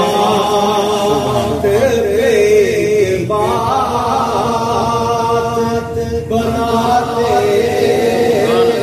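Naat sung without instruments by male voices in a chant-like melody, with long held, wavering notes and brief breaks for breath.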